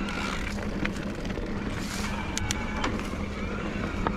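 Bosch CX mid-drive motor of an electric mountain bike humming steadily under climbing load, with riding noise and a few sharp clicks.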